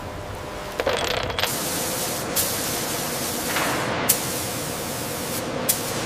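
Gravity-feed paint spray gun hissing steadily as it sprays paint, starting about a second and a half in. There are three brief, sharper hisses along the way.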